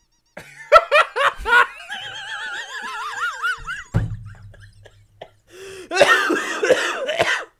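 Two people laughing hard: short bursts of laughter, then a long, high, wavering laugh. A thump sounds about four seconds in, and a loud breathy laugh comes near the end.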